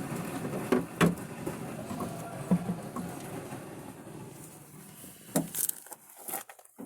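Several sharp knocks and clicks of window-track parts being worked into a car door, over a steady hum that fades away over the last couple of seconds.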